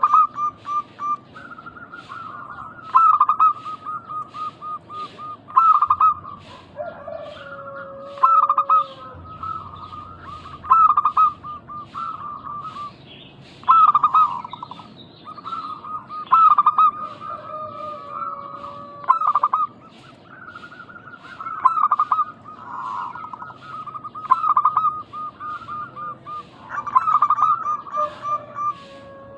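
Zebra doves cooing, several birds overlapping: each phrase opens with a loud note and runs on in a quick string of short coos, repeating every two to three seconds.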